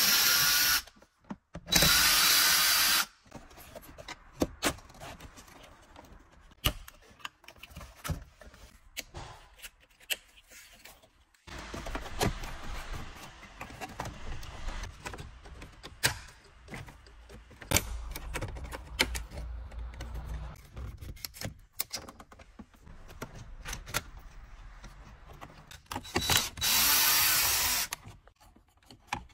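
Cordless power screwdriver running in short bursts to back out the screws of a car's centre console and radio trim, twice near the start and once near the end. Between the runs come the clicks and knocks of plastic trim panels being handled and pried loose.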